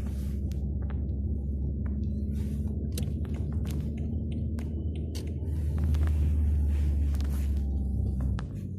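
Peugeot 406 engine running, heard from inside the car as a steady low drone with scattered light clicks. The drone grows a little louder past the middle and drops off sharply near the end. The car has a hard gear change because its new clutch disc was fitted backwards.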